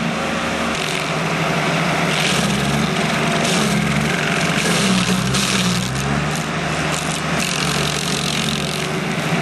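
Red Roo SP4012 stump grinder's 33 hp Kubota turbo diesel running under load, its pitch dipping and recovering twice as the cutting wheel bites. Gritty bursts of the wheel grinding into the stump come and go over the engine.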